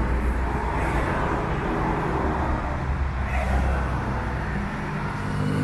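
A motor vehicle running close by in street traffic, a steady low rumble.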